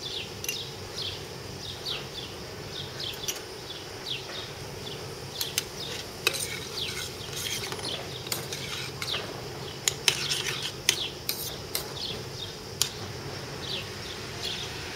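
A metal spoon stirring tomato sauce in a stainless steel saucepan, clinking against the pot again and again around the middle, with a faint sizzle. Short high chirps repeat throughout in the background.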